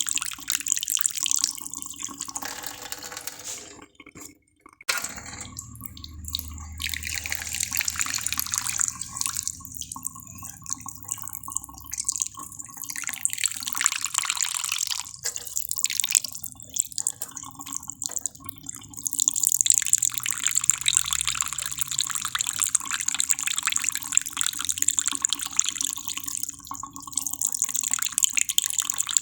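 Water running and dripping, a steady splashy hiss that cuts out for about a second around four seconds in.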